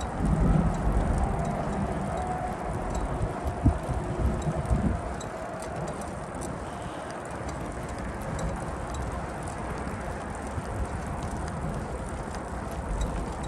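Outdoor street ambience: a steady rushing noise with a low rumble that is stronger during the first five seconds, with a few light knocks and clicks, then settles to a quieter hiss.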